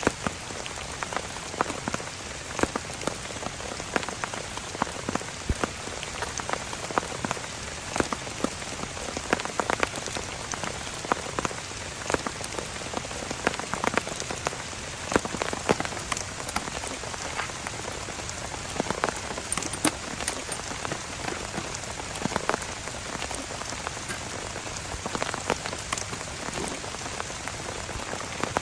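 Heavy rain falling steadily, a continuous hiss with many sharp drops tapping close by, several each second.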